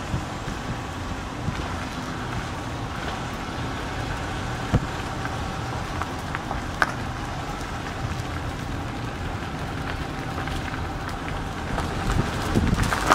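A car driving, with steady road and engine noise, a few sharp clicks, and the noise growing louder near the end.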